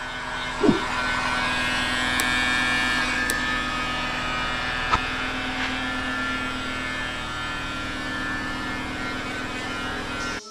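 Steady electric motor hum with a faint whine, broken by a short falling squeak just under a second in and a few light ticks.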